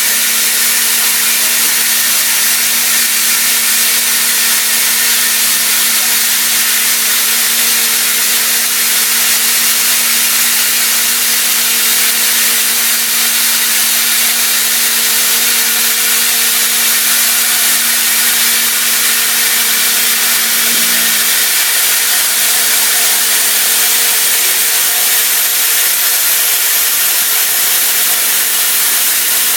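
Haas CNC mill cutting 30% silicon-carbide-reinforced aluminium (AlSiC) with a CVD diamond end mill under coolant: a steady loud hiss of coolant spray and cutting, with a humming tone from the cut that fades out about two-thirds of the way through.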